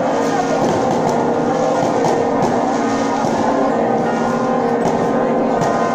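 Loud, steady din of a packed street crowd at a saint's procession, with music and long-held tones sounding through it.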